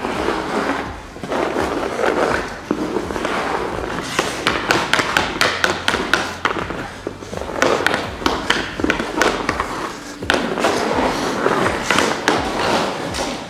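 Ice hockey skate blades carving and scraping across the ice, with the stick blade tapping the puck in a run of sharp clicks, thickest in the middle.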